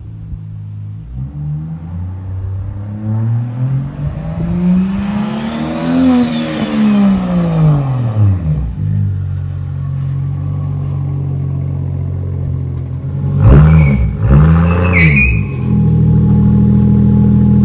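Turbocharged Toyota 2JZ inline-six in a 1965 Mustang revving. The revs climb for several seconds and fall back, then settle to a steady run; near the end two quick throttle blips rise and fall.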